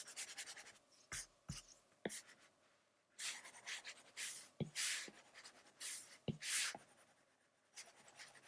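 Faint scratchy strokes of a stylus rubbing back and forth on a tablet screen while colouring in an area, with a few sharp taps of the tip on the glass.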